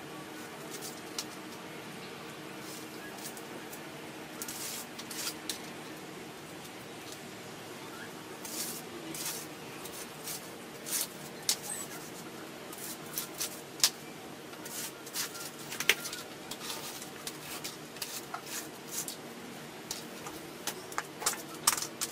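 Scattered light clicks, taps and clinks of hand work on a sheet-metal bumper, irregular and more frequent in the second half, over a steady low hum.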